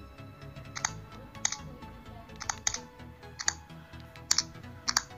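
Sharp clicks from taps on a Lenovo K8 Note smartphone's touchscreen, about seven at uneven intervals, over background music.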